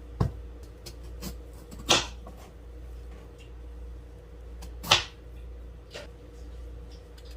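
Scattered knocks and clacks of kitchen items being handled, the two loudest about 2 and 5 seconds in, over a steady low hum.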